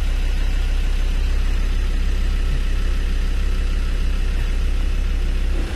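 Land Rover Discovery 2 Td5's five-cylinder turbo diesel heard from inside the cab, running steadily in gear on light throttle.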